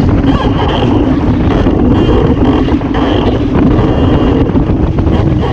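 Wind buffeting the microphone of a camera mounted on a Waszp foiling dinghy under sail, mixed with water rushing and spraying past the hull. A loud, steady rush with a low hum and a faint high whine that comes and goes.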